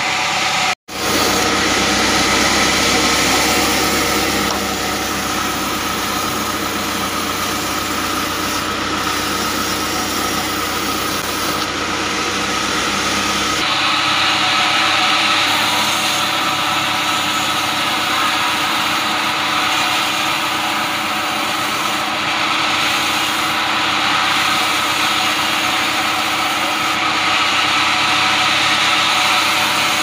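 Sawmill band saw running steadily and cutting acacia logs into slabs. The sound drops out for an instant about a second in. About halfway through the low hum falls away and a brighter, hissier sound takes over.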